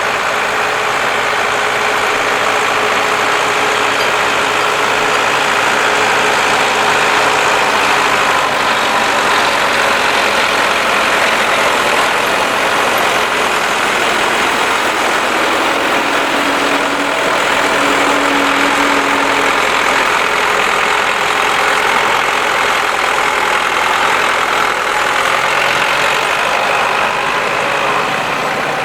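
Tractor engine running steadily at a low, even speed, with a brief steady tone standing out about two-thirds of the way through.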